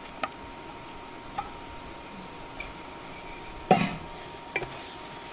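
Wooden spatula stirring pieces of fish head into thick masala paste in a metal pot, with a few light scrapes and knocks against the pot, the loudest about two-thirds of the way through.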